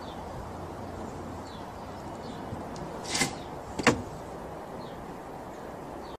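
Two short knocks about a second apart, about three seconds in, over a steady outdoor background hiss.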